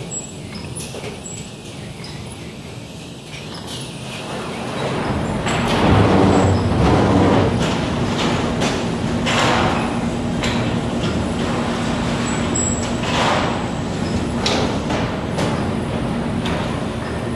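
Bakery production line machinery running. It grows louder about five seconds in and settles into a steady drone with one held tone, broken by repeated short hisses and clanks.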